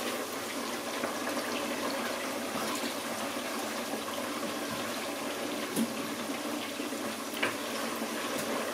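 Pot of stew boiling on the stove: a steady bubbling hiss, with two faint clicks in the second half.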